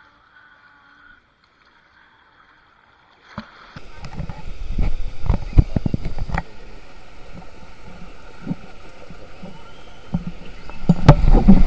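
Near silence for about three seconds, then a sudden start of loud rushing water at the entry of a tube waterslide, with wind buffeting and knocks on the head-mounted camera's microphone. The rushing settles to a steady hiss midway, then grows louder with more thumps near the end.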